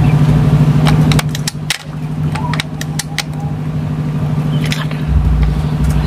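A steady mechanical hum with a low rumble, like a running engine, with a run of short sharp clicks between about one and three seconds in.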